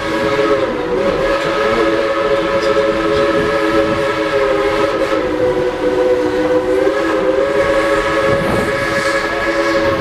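Steam locomotive whistle held in one long blast, several notes sounding together as a chord with a slight waver in pitch partway through, cutting off near the end, over the rumble of the moving train.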